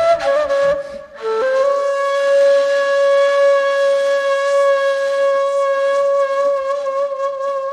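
Ney (Turkish end-blown reed flute) playing a slow, breathy taksim improvisation in makam segah: a held note, a short break for breath about a second in, then a brief lower note that steps up into one long held note.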